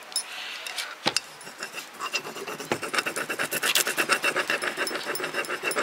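A small wooden scraper stick rubbed quickly back and forth over a rub-on decor transfer sheet on a painted pot, a dry scratchy rasping in a fast, even run of short strokes that gets denser after about two seconds.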